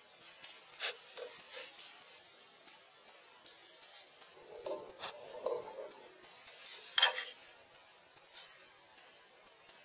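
Intermittent scraping and rasping of hand work, with scattered sharp clicks. A duller rubbing patch comes about five seconds in, and the sharpest scrape about seven seconds in.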